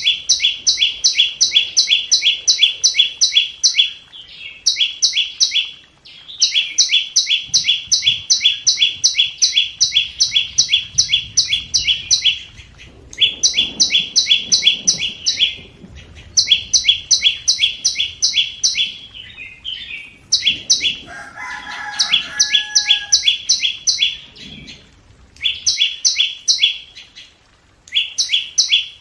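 Flowerpecker lure call: runs of sharp, high chipping notes, about three or four a second, each run several seconds long with short breaks between. About three-quarters of the way through, a lower whistled call overlaps the chips for a couple of seconds.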